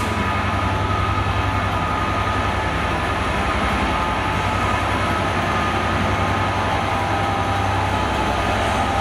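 A standing train idling: a steady low engine hum with a few steady whining tones above it, holding even throughout.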